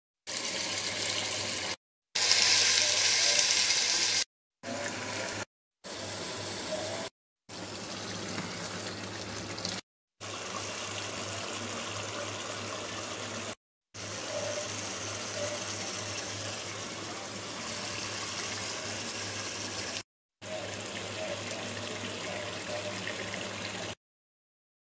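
Chicken karahi sizzling and bubbling in a pot on the stove, a steady hiss heard in about eight short clips that each cut off abruptly, loudest about two seconds in, with a steady low hum underneath.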